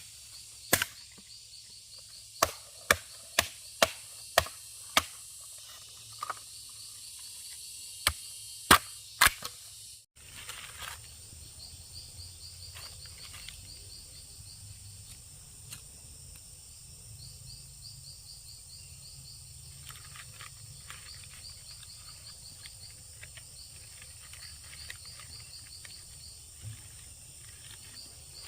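Sharp impact strikes, roughly one a second, over insect chirping for about the first ten seconds. Then the strikes stop and only the insects' fast, regular chirping goes on over a steady hiss.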